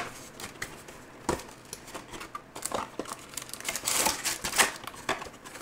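Plastic wrapping crinkling and rustling in irregular bursts as a sealed trading-card hobby box is opened and its foil packs are taken out.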